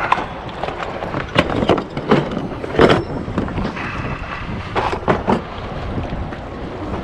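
Scattered knocks and clunks of gear being handled and loaded, about nine in all, over a steady low rumble with wind on the microphone.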